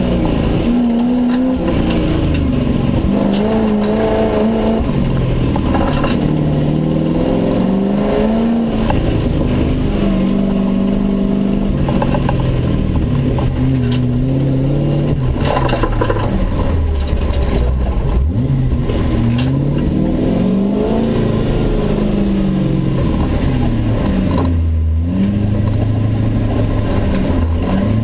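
Engine of a Toyota Land Cruiser rally 4x4, heard from inside the cabin, revving up and down over and over as it accelerates and shifts gears on a dirt stage, with tyre and road rumble underneath.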